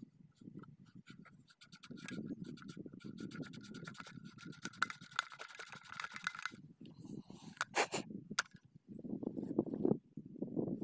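Rubbing and scraping on the slip rings of a center-pivot irrigation collector head as they are cleaned by hand: a fast run of scratchy strokes through the middle, then a couple of sharp clicks about eight seconds in, over a low rumble.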